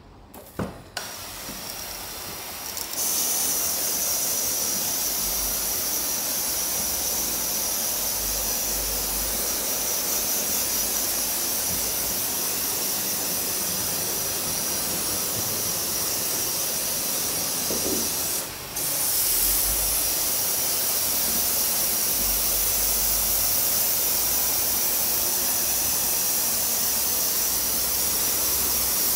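Garden hose spray nozzle hissing steadily as water sprays onto a stone flagstone floor, wetting its lime-and-sand mortar joints. The spray cuts out briefly about two-thirds of the way through, then starts again a little louder.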